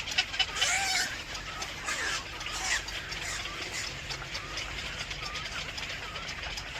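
Birds calling in short, curved chirps with many sharp clicks, busiest in the first second and a half.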